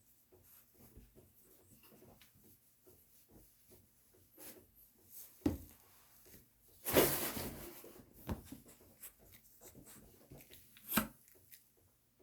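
Light handling noises in a small room: soft rubbing and small taps, with a louder rustle lasting about a second about seven seconds in and a sharp tap near the end.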